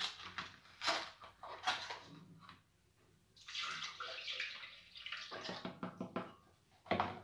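Milk poured from a carton into a glass blender jar: a splashing stream that starts about halfway through and runs for nearly two seconds. A few light knocks come before and after it.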